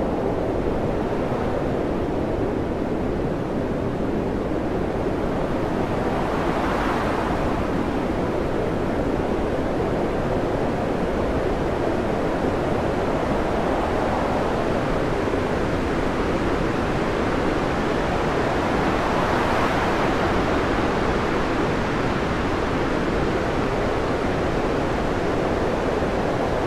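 Storm wind and heavy sea: a steady rushing noise with two louder surges, about seven seconds in and again near twenty seconds.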